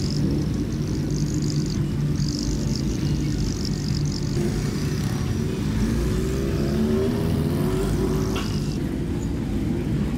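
Motorcycle engines running at low revs as bikes ride off one by one, with one engine revving up and pulling away about halfway through.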